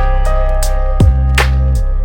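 Background music: sustained melodic notes over a deep bass with a steady drum beat.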